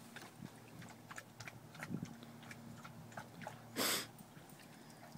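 Dog lapping water from a plastic kiddie pool: many small irregular clicks, with one louder short rush of noise about four seconds in.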